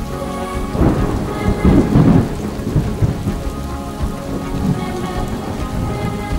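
Thunderstorm: steady rain with a roll of thunder that swells about a second in and is loudest around two seconds, then eases back to the rain.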